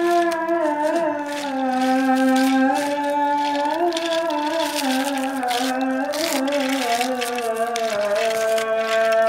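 A simple melody of held, slightly wavering notes stepping up and down, typical of a battery toy train's built-in tune, over a steady dry clicking rattle from the toy running across rough concrete.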